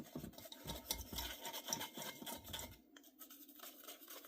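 A measuring spoon scraping powdered sugar through a mesh strainer, a fast run of scratchy strokes that grows faint about three seconds in.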